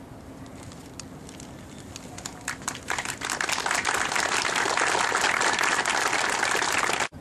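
Applause from a group clapping. It begins as a few scattered claps, swells into steady, full applause about three seconds in, and cuts off suddenly near the end.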